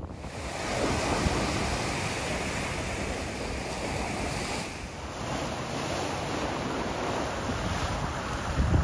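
Ocean surf washing up a sandy beach: a steady rush of breaking and receding water. Wind buffets the microphone, gusting more strongly near the end.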